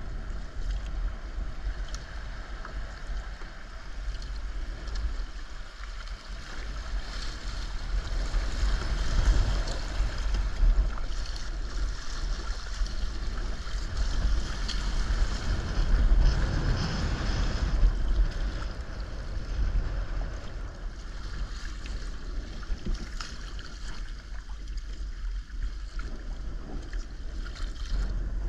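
Sea kayak under paddle on choppy water: paddle blades splashing and water washing along the hull, with wind buffeting the deck-mounted camera's microphone as a steady low rumble.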